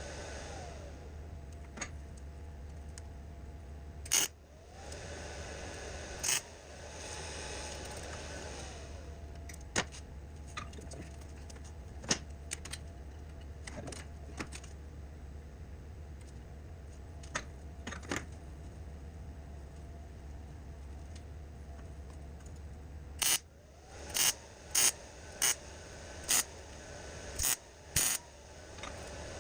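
Workshop sheet-metal work: short, sharp clicks and clatters over a steady low hum, with a quick run of about seven near the end.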